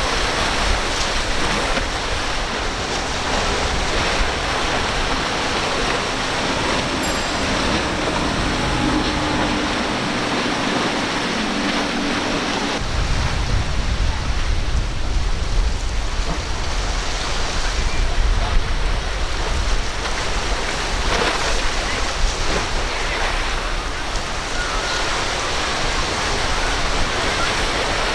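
Steady rush of surf and choppy water mixed with wind on the microphone, the low wind rumble growing heavier about halfway through. For a few seconds before that, the steady drone of a passing boat's outboard engine sits under the wash.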